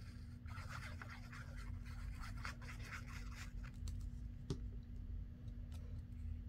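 Scratchy rustling of a glue bottle's nozzle and fingers working along the back of a small paper tag, then a single light knock about four and a half seconds in, followed by a few faint ticks of paper being handled.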